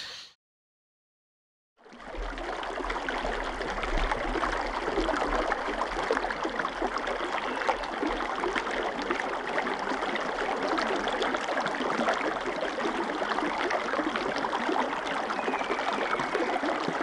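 Shallow creek water running steadily over rocks, a continuous babbling trickle. It starts about two seconds in after a silent gap.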